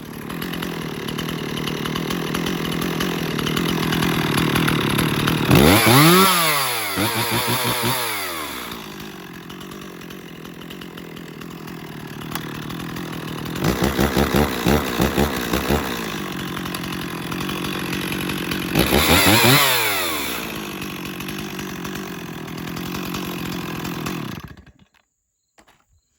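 1991 Stihl 026 two-stroke chainsaw running: idling, revved up and back down a few seconds in, a string of short quick throttle blips in the middle, another rev after that, then the sound stops abruptly near the end.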